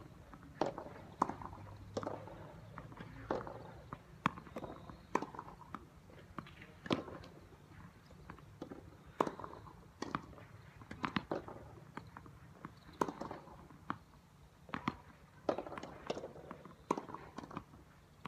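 Tennis balls struck by rackets and bouncing on the court: a series of sharp pops, roughly one a second, some coming in quick pairs.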